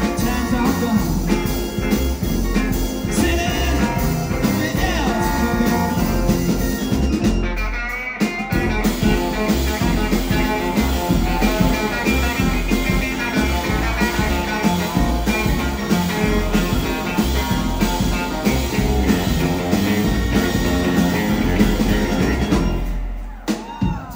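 Live band playing: electric guitar, upright bass and drums. The band drops out briefly about eight seconds in, then picks up again, and the song stops just before the end.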